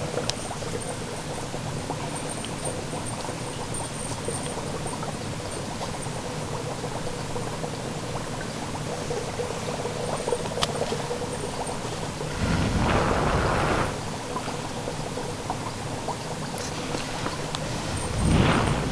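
Dry ice fizzing and crackling on a volcano cake, a steady bubbling hiss. Two louder low rushing gusts, each about a second and a half, come about twelve seconds in and near the end.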